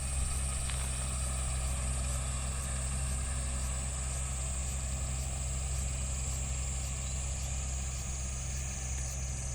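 John Deere tractor engine running steadily at a constant speed, with a high whine above it that slowly drops in pitch.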